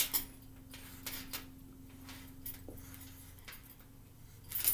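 Dry-erase board being erased and written on: a series of short, scattered rubbing and tapping sounds, strongest at the start and near the end, over a steady low hum.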